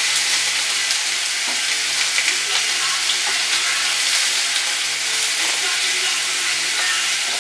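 Venison burger patties sizzling in a hot frying pan, a steady hiss with a few faint clicks.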